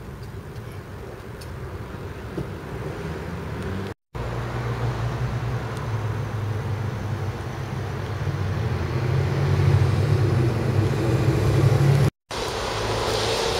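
Steady low outdoor rumble that swells over the few seconds before the second cut. The sound drops out completely for a moment twice, at the edits.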